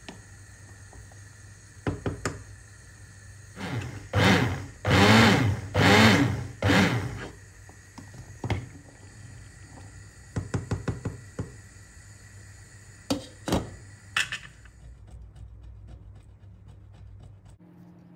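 Hand blender run in four short bursts through hot broccoli soup in a steel pot, its pitch rising and falling. Around the bursts come sharp knocks of a wooden spoon against the pot, with a quick cluster of taps about halfway through. A steady low hum runs behind and stops near the end.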